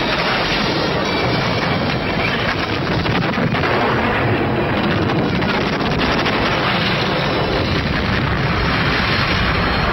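Battle sound from a Napoleonic war film: continuous cannon fire and gunfire with explosions, forming a dense, unbroken din.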